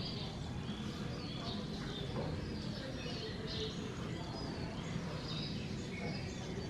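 Birds chirping faintly: many short, high chirps scattered throughout, over a steady low background hum.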